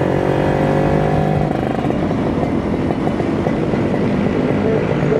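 Kawasaki Ninja RR 150's two-stroke single-cylinder engine running under way, its pitch easing down over the first second and a half, then holding steadier.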